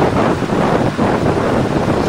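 Mountain river water rushing, a loud, steady rush of churning water.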